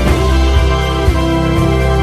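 Music with sustained chords over a low beat about twice a second.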